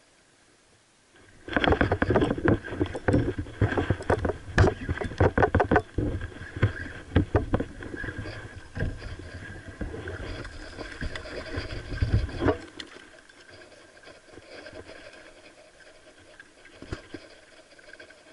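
Loud handling clatter, rubbing and knocking while a fish is reeled in on a spinning reel and landed, starting about a second and a half in and dying down after about eleven seconds to fainter, scattered knocks.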